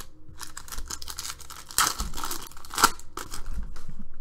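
Foil wrapper of a trading-card pack being torn open and crinkled by hand, in short crackly bursts that are loudest in the middle, with one sharp crack about three seconds in.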